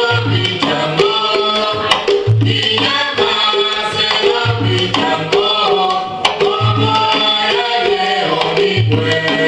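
Afro-Cuban orisha music for Changó: hand drums and percussion under a sung melody, with a deep low beat about every two seconds.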